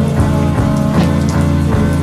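Background music with sustained chords and a steady beat, mixed with a layer of falling rain.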